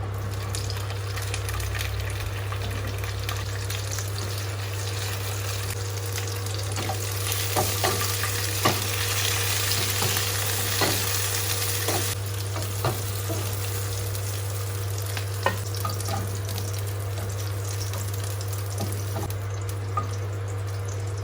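Food frying in hot oil in a pan, with a steady sizzle that swells louder for a few seconds midway. Now and then a utensil clicks against the pan as the food is stirred and turned.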